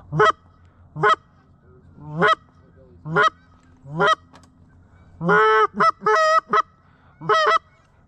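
Goose honks: loud single honks repeated about once a second, then a quicker run of several honks about five seconds in, and one more near the end.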